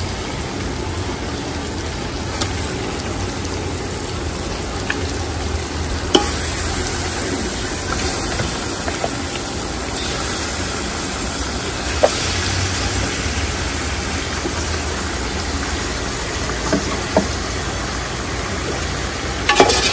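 Pieces of goat meat going into a large aluminium pot of hot oil and masala, sizzling steadily over a low steady rumble, with a few sharp clicks of the slotted spoon against the pot.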